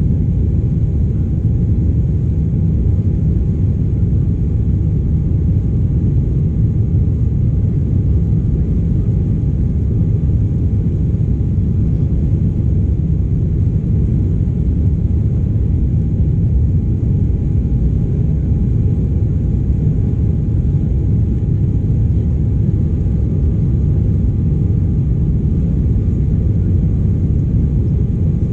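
Steady cabin noise of an Embraer 195 in the climb after takeoff: a loud, even rumble from its GE CF34-10E turbofan engines and the airflow, with a faint steady whine on top.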